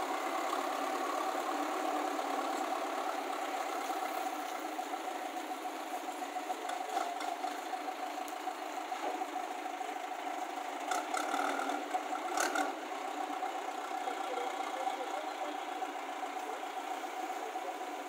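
JCB 3DX backhoe loader's diesel engine running steadily as the machine pushes soil with its lowered front loader bucket. A couple of short clanks and rattles come a little past halfway through.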